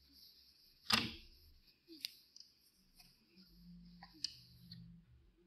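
Cloth wiping over a whiteboard: a faint rubbing hiss, with one sharp knock about a second in and a few lighter ticks.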